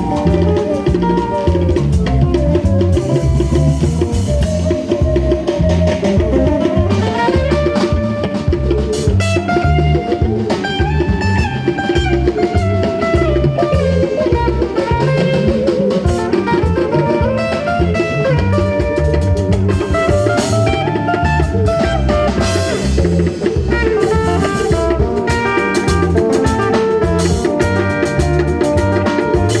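Band music played through: a drum kit keeps a steady beat under guitar, with a gliding melodic lead line on top.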